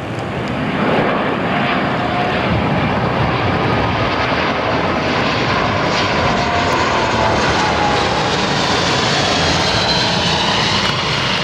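Boeing C-17 Globemaster III cargo jet's four turbofan engines during a low flyby. The loud jet noise builds over the first second and then holds steady, with faint whining tones that slowly drop in pitch as the jet passes.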